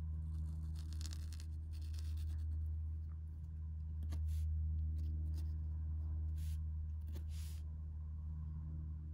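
Pointed steel calligraphy nib in an oblique holder scratching across paper in a series of short pen strokes, about seven of them, over a steady low hum.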